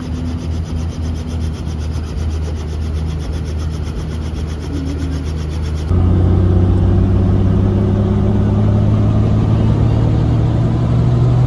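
A helicopter running, its rotor beating in a quick, even rhythm over a low engine hum. About six seconds in, the sound cuts to inside the cabin: a louder, steady drone of engine and rotor whose pitch rises slightly near the end.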